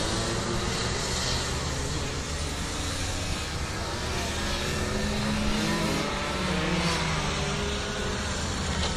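Several Rotax Mini Max two-stroke kart engines running on the circuit, their overlapping pitches rising and falling as the karts accelerate and lift off for the corners.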